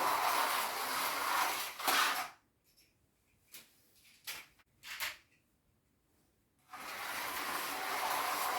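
Carrera Go slot cars running on the plastic track, a steady whirring of small electric motors and wheels. It cuts out a little over two seconds in, with only a few brief clicks, and starts again near the end.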